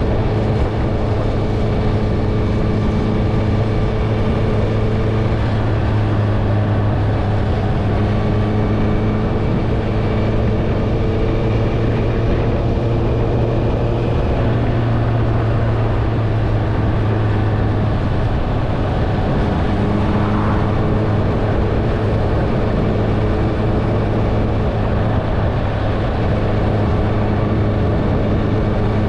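Honda CBR650R inline-four with an Akrapovic exhaust running at fairly steady cruising revs, its note drifting slightly up and down midway, over steady wind and road noise.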